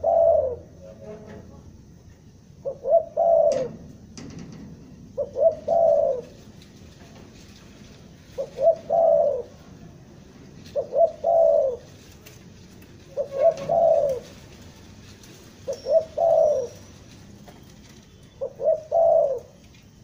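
Caged spotted dove (tekukur) cooing its lure call over and over, one phrase about every two and a half seconds. Each phrase is two or three short clipped notes followed by a longer falling coo, the stuttering ("gagap") style prized in a decoy dove.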